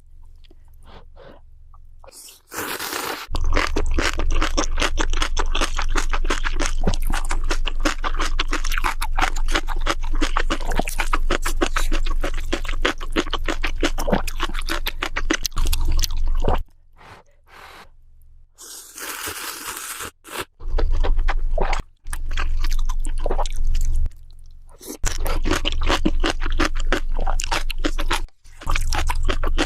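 A person eating crunchy food close to the microphone: loud, rapid crunching and chewing in long runs, broken by a few short pauses.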